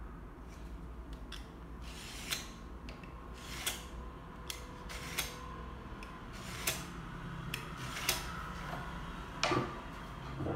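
A hand tool scraping and clicking on a laminate flooring plank in short, sharp strokes, about seven of them, roughly one every second and a half.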